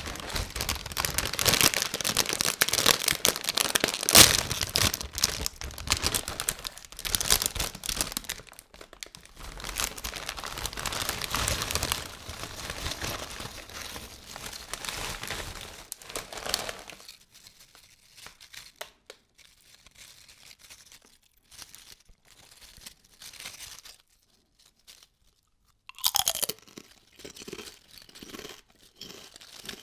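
Plastic crisp packet crinkling loudly as it is handled and opened for about the first seventeen seconds, then quieter scattered rustles and clicks as the crisps are shaken out into a hand.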